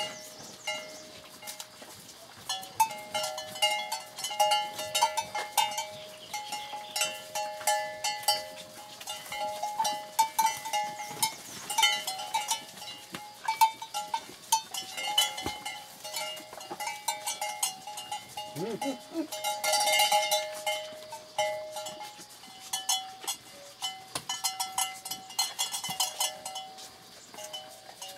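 Bells on cattle clanking irregularly as the animals shift about. One short low call rises and falls about two-thirds of the way through.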